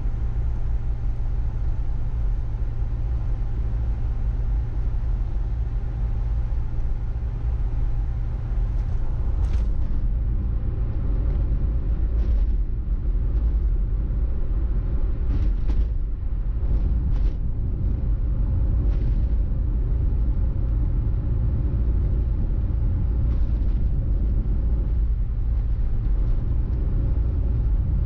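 Steady low rumble of a car on the move, engine and tyre road noise picked up by a car-mounted camera, with a few short knocks, as from bumps in the road, from about ten seconds in.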